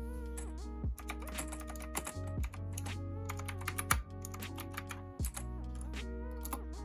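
Typing on a Knewkey Chic mechanical keyboard: irregular runs of sharp key clicks, heard over lo-fi background music with a steady bass.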